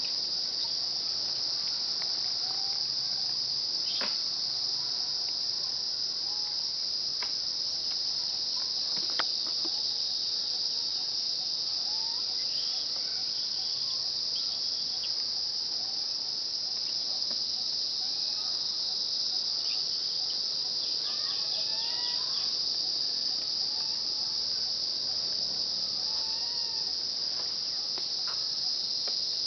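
Steady, high-pitched drone of insects in the forest, unbroken throughout. Faint short whistled calls come here and there, mostly in the second half, and there are a couple of sharp ticks.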